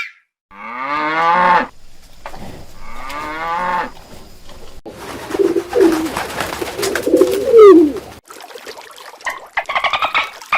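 A cow mooing twice, each moo falling in pitch, then a pigeon cooing in lower, warbling notes. Near the end a quick run of pulsed calls from another animal begins.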